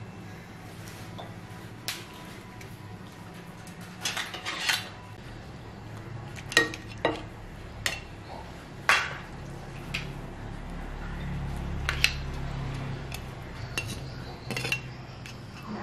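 A serving spatula clinking and scraping against a ceramic plate as noodles and crab are heaped onto it: a dozen or so irregular knocks and clinks, a few ringing briefly, over a low steady hum.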